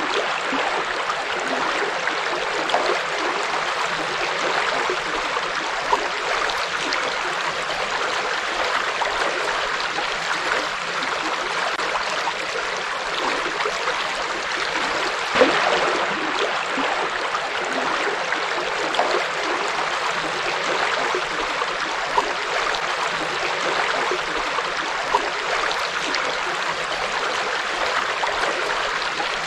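River water flowing and splashing over rocks: a steady rushing with small splashes and gurgles, one a little louder about halfway through.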